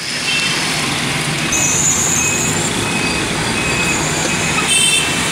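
Steady road and traffic noise heard from inside a moving car, with a brief high-pitched squeal about two seconds in and another short high squeal near the end.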